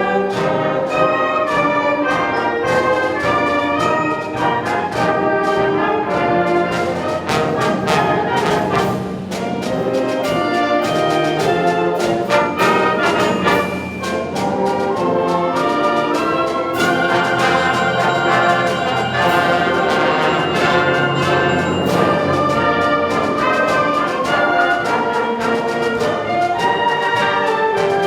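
A wind orchestra playing, with the brass section (trumpets, trombones, horns) out in front over the woodwinds and sharp percussion strikes in the first half.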